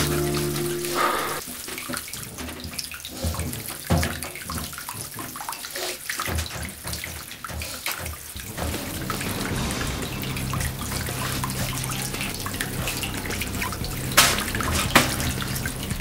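Bathwater sloshing and splashing as a person moves in a bathtub. A low steady hum comes in about halfway, and there are two sharp knocks near the end.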